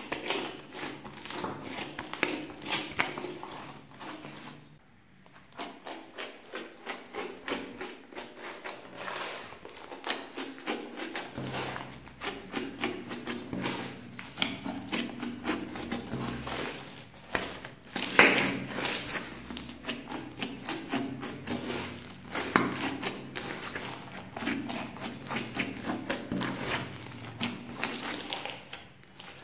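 Hands squeezing, stretching and folding a mass of slime mixed with clay and floam beads, giving dense, irregular sticky clicks and crackles. It goes briefly quieter about five seconds in.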